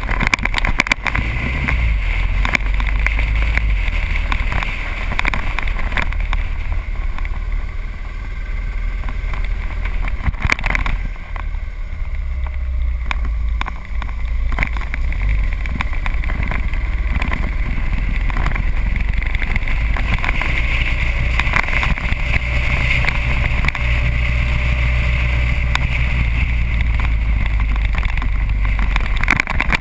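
Motorcycle riding at speed, heard through a bike-mounted action camera: steady heavy wind rumble on the microphone over the running engine, easing briefly about twelve seconds in.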